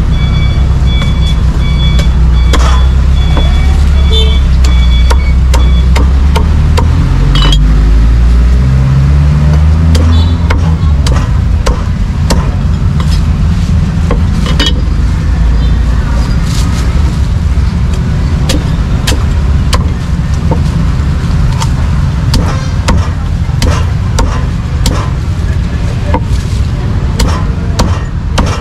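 Cleaver chopping roast duck on a wooden chopping board, sharp chops coming faster in the second half. Under them runs the heavy rumble of road traffic, with a vehicle engine rising in pitch about seven to ten seconds in.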